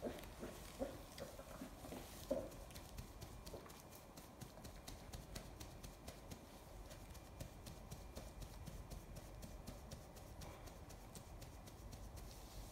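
A lion cub gives a few short, soft grunts in the first couple of seconds. After that come faint crackles and clicks as it is rubbed down and shifts about on an absorbent pad.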